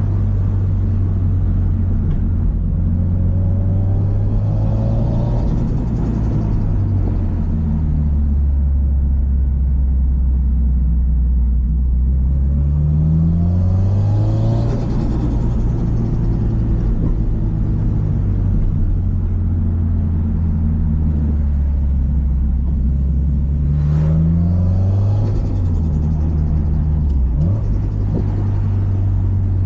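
Subaru Impreza WRX STI's EJ207 turbocharged 2.0-litre flat-four driven on the road: long steady stretches broken by two rising revs, about halfway and again a few seconds before the end, with a sharp click at the start of the second.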